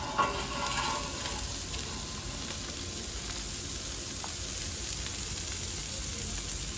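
Pork belly sizzling as it cooks, a steady frying hiss.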